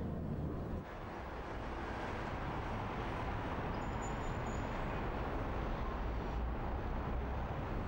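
Steady low rumble of vehicle noise, an even hum and hiss with no distinct events.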